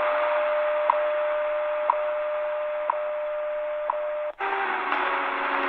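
Eton Grundig Executive Traveler III shortwave radio's speaker playing the 5000 kHz standard time-signal broadcast: a tick every second over a steady tone and static hiss. A little over four seconds in, the sound cuts out for an instant as the radio is retuned, and music from another shortwave station comes in.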